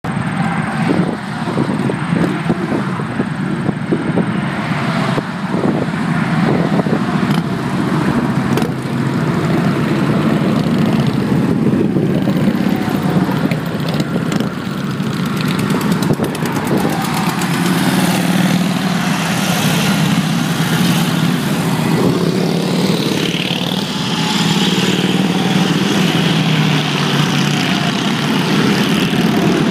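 A long line of Indian motorcycles riding past one after another, their engines running in a continuous, overlapping din that grows a little louder in the second half.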